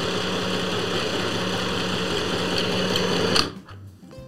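Robotic FHSM505 mini portable sewing machine stitching fabric at its high-speed switch setting, running steadily on its own without the foot pedal. It stops abruptly about three and a half seconds in.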